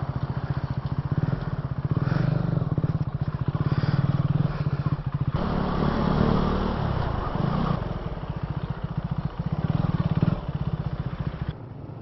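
KTM Duke 390's single-cylinder engine running as the motorcycle is ridden, its pulsing note changing every few seconds with the throttle and dropping away near the end.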